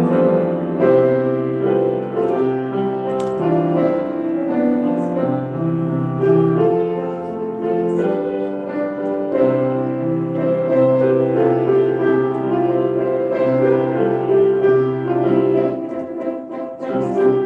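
Instrumental keyboard music: sustained chords that change every second or two over a held low bass note, with no singing.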